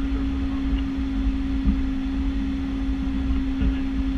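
Piper Cheyenne II's twin Pratt & Whitney PT6A turboprops running at low taxi power, heard inside the cockpit: a steady propeller hum at one constant pitch over a low rumble.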